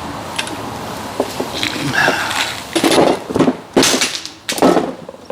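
Hand tools and metal suspension parts clattering during work on a rear shock mount: light handling clicks, then three loud clanking knocks a little under a second apart in the second half.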